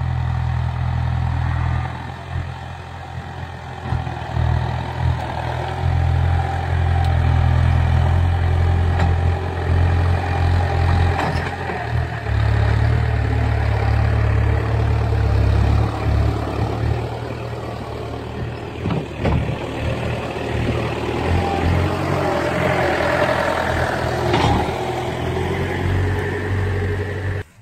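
Farm tractor's diesel engine running loudly, the tractor working up close with its front-loader bucket lowered to the ground.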